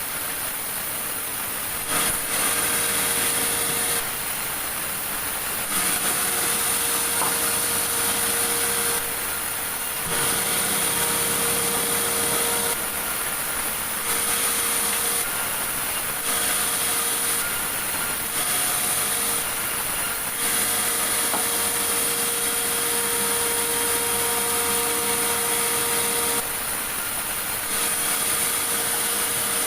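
Sawmill saw running and cutting through meranti logs: a continuous loud rasping noise with a steady whine. The sound shifts abruptly every couple of seconds.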